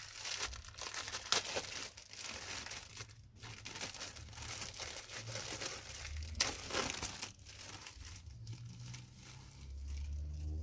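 Plastic packaging crinkling and crackling in irregular bursts as a replacement Spectrum keyboard membrane is unwrapped and handled.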